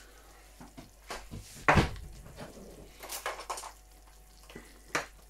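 A few scattered knocks and clinks of kitchen things being handled, such as pots, jars or utensils, the loudest about a second and a half in.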